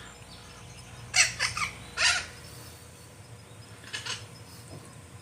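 A bird calling outdoors with short, harsh, caw-like calls. There are three of them, at about one second in, two seconds in and four seconds in, and the first is the loudest.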